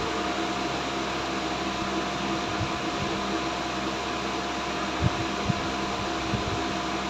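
Steady mechanical hum with a few faint, short knocks and clicks of hand tools working on the engine bay: bolts being undone to remove a part.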